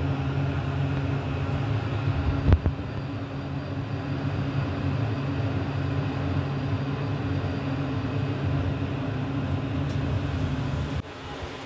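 Otis hydraulic elevator's pump motor humming steadily as the car rises, with a single thump about two and a half seconds in. The hum cuts off suddenly near the end as the car reaches its floor.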